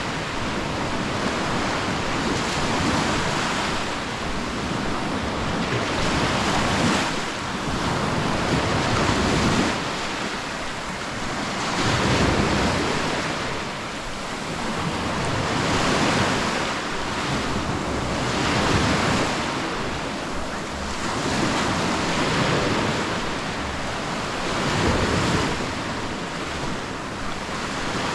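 Sea waves breaking and washing up the beach, the surf swelling and easing every few seconds, with wind rumbling on the microphone.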